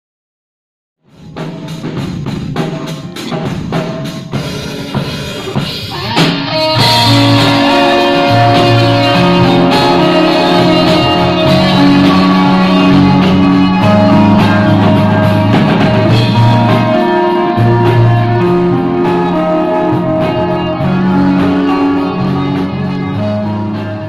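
Live rock band playing: drum kit, electric guitars, bass guitar and acoustic guitar. It starts about a second in with drums and guitar, and the full band comes in louder about six seconds in.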